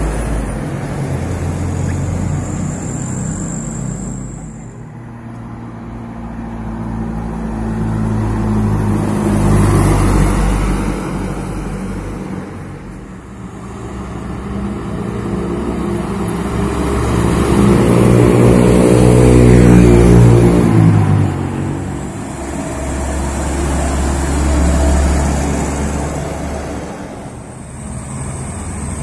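Trucks driving past one after another, each engine growing louder as it comes near and fading as it goes. The loudest passes are about ten and twenty seconds in, and the second one's engine note rises as it speeds up.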